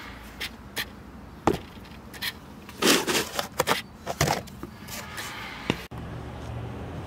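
Chopping: a blade striking wood in irregular knocks, with a quick cluster of strikes about three seconds in.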